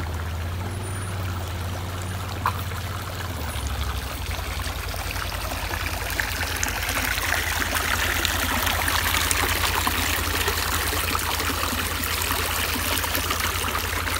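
Running water of a small mountain stream, a steady rushing that grows a little louder about six seconds in.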